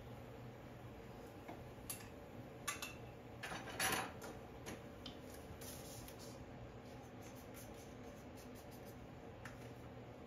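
A palette knife and paper palette being handled while paint is loaded: a few light clicks, then one louder short scrape a little before four seconds in, followed by faint scattered ticks, over a low steady room hum.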